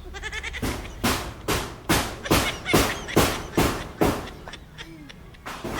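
A child making rhythmic sound effects: nine short, harsh bursts about two a second, stopping about four seconds in.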